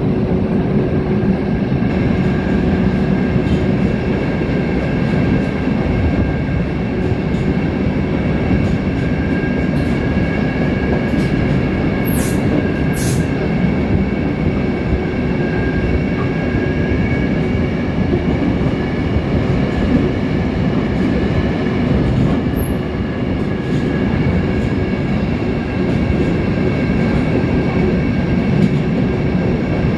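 Berlin U-Bahn train running through a tunnel, heard from an open-top car: a steady loud rumble with a high whine of several steady tones. Brief high wheel squeals come twice about twelve seconds in and once more a little past twenty-two seconds.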